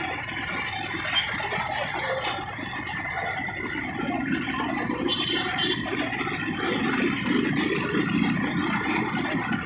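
Engine of a moving scooter and many motorbikes running close by in dense, slow traffic, with road and wind noise; a steady din that grows a little heavier about halfway through.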